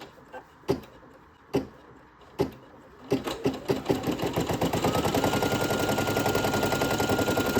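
Brother PE900 single-needle embroidery machine starting a stitch-out: a few separate needle strokes, then a fast, even stitching rhythm as the motor speeds up, with a whine that rises and then holds steady.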